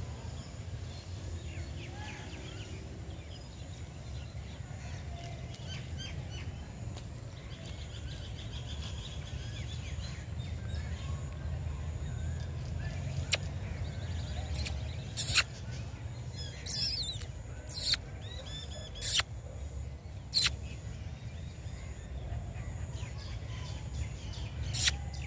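Outdoor ambience with a steady low rumble. From about halfway through come about eight short, sharp, high-pitched bird chirps at irregular intervals.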